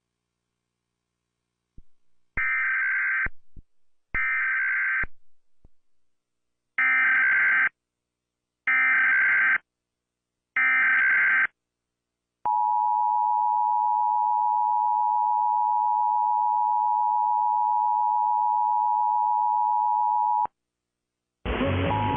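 Emergency Alert System test tones: five bursts of about a second each of the SAME digital header's screechy data tones, with short gaps between them, then the EAS attention signal, a steady two-tone electronic buzz held for about eight seconds that cuts off sharply. A rougher, noisier sound starts just before the end.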